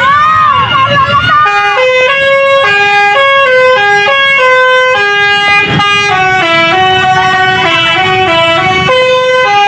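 Telolet multi-tone bus horn on a Putra Pelangi bus: siren-like sweeping whoops for about the first second and a half, then a loud tune of held notes stepping up and down.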